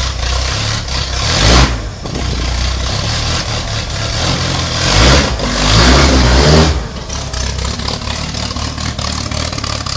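Robin Hood kit car's engine idling steadily, revved twice: a short blip about one and a half seconds in and a longer rev from about five seconds to nearly seven seconds, each falling back to idle.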